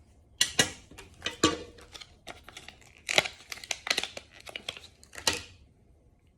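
Crinkly plastic being handled and pulled open: an irregular run of crackles and sharp clicks lasting about five seconds, stopping near the end.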